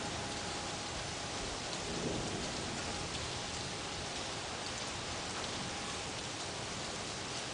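Steady rain falling during a thunderstorm, with a faint low rumble of thunder about two seconds in.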